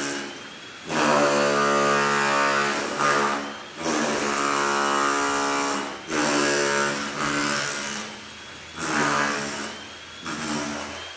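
Circular saw running in about five loud bursts of a few seconds each, its motor whine dipping between them and tailing off at the end.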